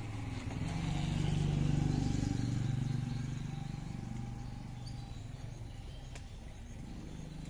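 A motor vehicle's engine passing by, a low hum that swells over the first few seconds and then fades away.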